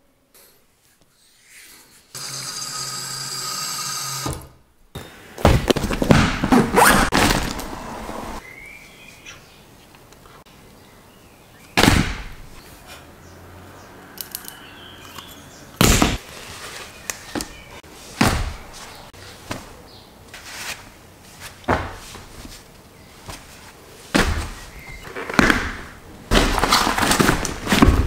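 Gear being handled and packed into a leather holdall: a series of sharp knocks and thunks with rustling between them. A steady rushing sound lasts about two seconds a couple of seconds in.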